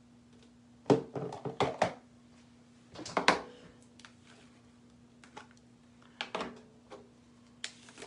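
Small plastic jars of paste and their lids being handled on a wooden table: clusters of clicks and knocks, loudest about a second in and again around three seconds.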